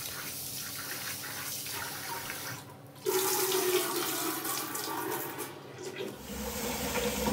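Tap water running into a steel bowl of rice and lentils as a hand swirls the grains to wash them. About three seconds in it gets louder as the cloudy rinse water is poured off into a stainless steel sink.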